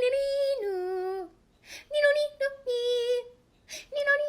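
A high voice singing a short phrase three times with brief pauses between: each time a held higher note that steps down to a held lower one.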